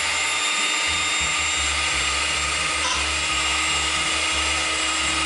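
Electric hand mixer running steadily at one speed, beating cupcake batter in a stainless steel pot.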